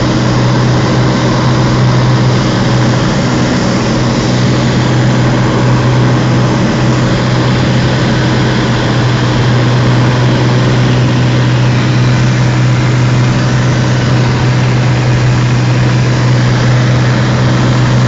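Cessna 206's six-cylinder piston engine and propeller running steadily on approach to land, heard inside the cabin as a loud, even, low drone.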